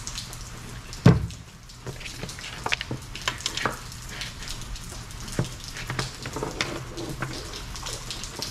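Steady hiss of heavy rain, with scattered small clicks and taps from the plastic tire inflator and its cord being handled on a table, and one loud thump about a second in.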